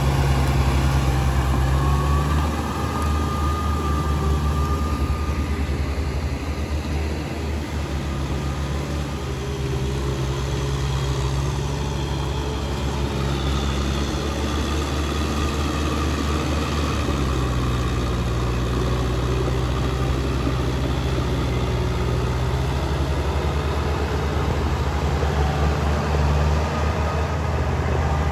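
Kubota M6040SU farm tractor's diesel engine running under load while tilling in deep paddy mud. The engine note shifts pitch a few times.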